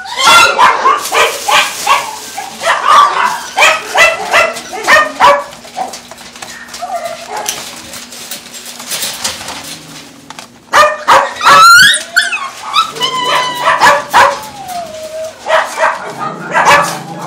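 Caged dogs barking repeatedly, fast runs of barks at first, then high gliding whines and yelps a little past the middle, with barking picking up again near the end.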